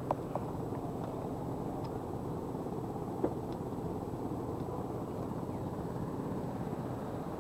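Steady low rumbling noise, with a faint click about three seconds in.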